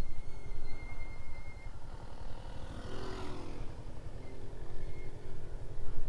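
Motorcycle engine running at low revs as the bike rolls slowly to a stop, under a steady wind rumble on the microphone; a brief louder surge about halfway.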